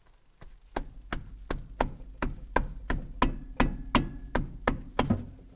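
A wrench clicking about three times a second as it works a seized brake line nut loose from a drum brake's wheel cylinder.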